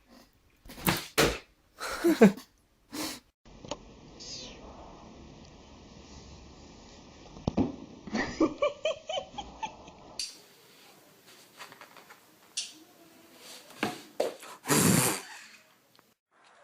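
Cat meowing and yowling in several short, loud calls, with sudden changes of background between them.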